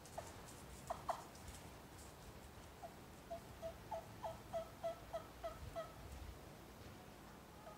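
Mark Prudhomme bocote-wood trumpet turkey call played: two short notes about a second in, then a faint run of about ten evenly spaced hen-turkey yelps, about three a second.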